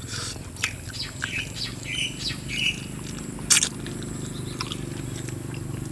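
Close-up eating sounds of spicy stir-fried eel eaten by hand: lip smacks, sucking and chewing, with one sharp loud smack about three and a half seconds in. A few short high chirps come about two seconds in, over a steady low hum.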